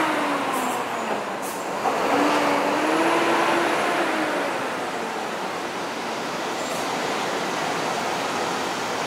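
Steady rush of distant city traffic, with a faint pitched hum passing about two to four seconds in.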